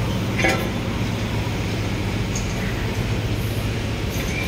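Steady low engine hum of a vehicle running, with road noise.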